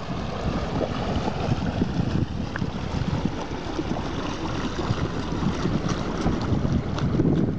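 Wooden motor taxi boat's engine running as it passes close by, with water rushing at the hull and wind buffeting the microphone; it grows a little louder near the end.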